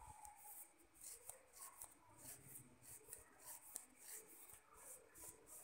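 Near silence, with faint soft rubbing and scraping about twice a second, from hands handling cashew pieces.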